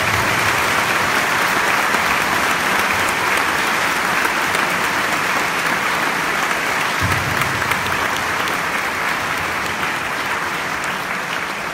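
A congregation applauding: dense, continuous clapping from many hands that eases off a little near the end.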